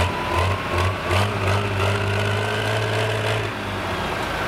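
John Deere pulling tractor's turbocharged diesel engine running at low speed at the end of a pull. A steady low drone carries a faint whine that rises slowly in pitch.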